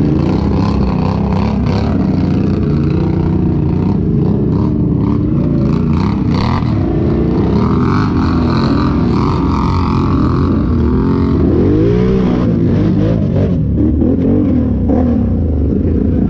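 Side-by-side UTV engine running under load through mud, with scattered knocks and clatter in the first half. In the last few seconds the engine is revved up and down several times.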